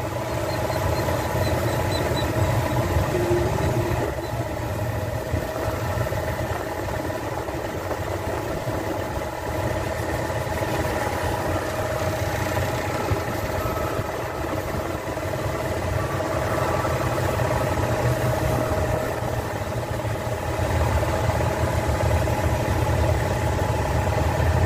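Car engine idling steadily with the air-conditioning compressor running as refrigerant from a can is charged into the system.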